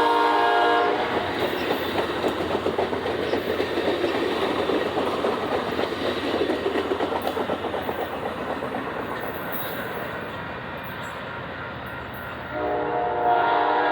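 Amtrak passenger train's locomotive air horn sounding a chord that cuts off about a second in. The train then rolls past with a rapid wheel clatter on the rails that slowly fades. The horn sounds again near the end.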